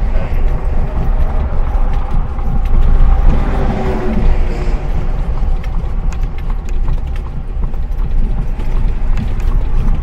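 Ride noise inside a moving horse-drawn Amish buggy: the wheels rumble and rattle on the road, the cab creaks and knocks, and the horse's hooves clip-clop ahead.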